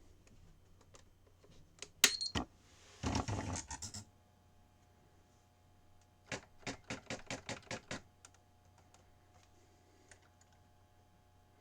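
Sears Electronic Communicator 2 daisy wheel typewriter typing: a sharp click about two seconds in, a dense rattle of strikes about a second later, then a quick even run of about ten strikes, some six a second.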